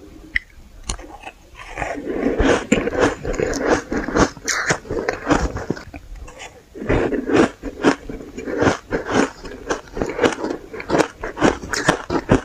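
Close-miked biting and chewing of powdery shaved ice: a rapid, irregular series of crisp crunches and crackles in the mouth.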